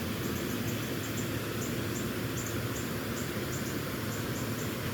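Insects chirping, short high calls repeating about two or three times a second, over a steady low outdoor hum.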